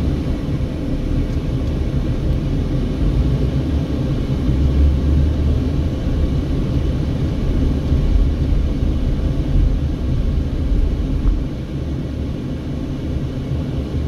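Steady low rumble of a Mercedes-Benz car driving on a town street, heard from inside the cabin: tyre, road and engine noise at low speed. It eases slightly near the end.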